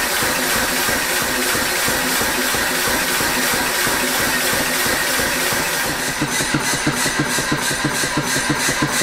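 Massey power hammer running: a steady machine sound of its motor and belt-driven flywheel, turning from about six seconds in to a regular pulsing of about four to five beats a second. The hammer is running slightly down on performance, with its valve still to be adjusted.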